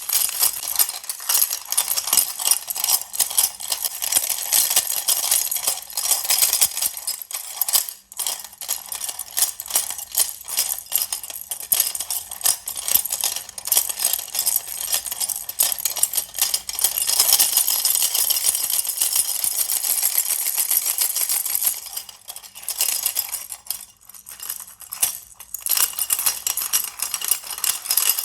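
Baby rattle shaken continuously, a dense clatter of small rattling clicks. It breaks off briefly about eight seconds in, and the shaking turns sparser and more broken near the end.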